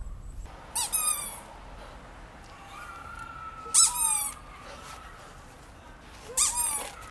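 Red clown nose being squeezed on a nose, giving three short squeaks about two and a half seconds apart.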